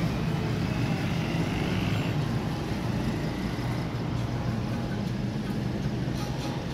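Hitachi diesel-electric locomotive's engine running steadily, a deep continuous rumble.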